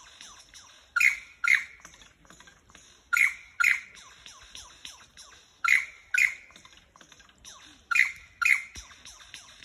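A bird calling in loud, sharp doubled notes: four pairs about two seconds apart, with faint chirps between them.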